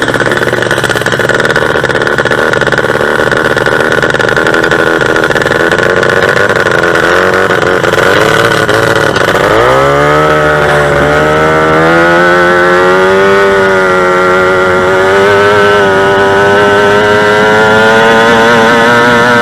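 Two-stroke racing engine running hard. About halfway through its pitch drops sharply, then climbs back over a couple of seconds and holds steady at high revs.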